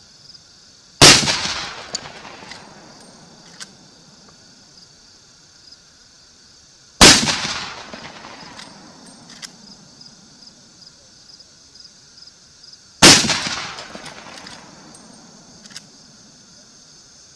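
Three shots from a Marlin 1895 lever-action rifle in .45-70 Government, about six seconds apart. Each is loud and dies away over about a second, with a few faint clicks between the shots.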